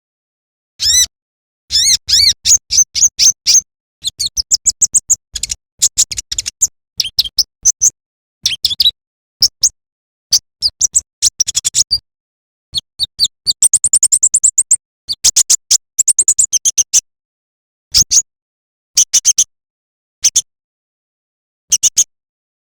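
Kolibri ninja sunbird (konin) song: quick bursts of high, thin chirps and rapid trills, broken by short pauses.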